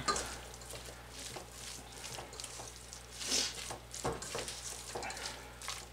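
A spoon mixing shredded chicken and mayonnaise in a stainless steel bowl: soft wet squishing, with a few brief scrapes of the spoon against the metal about three and four seconds in.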